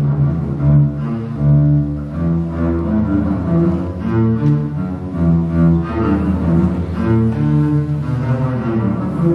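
Double bass played with the bow (arco), a melody of sustained notes that change pitch about every half second to a second.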